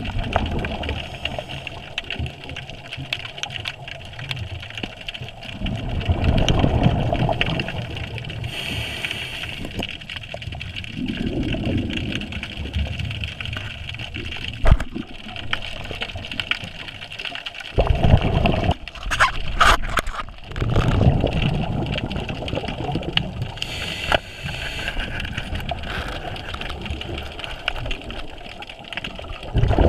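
Underwater sound of a scuba diver's breathing: bubbles from the regulator bubbling past the camera in surges every several seconds. A sharp knock about halfway through and a few clicks soon after, from gear handled underwater.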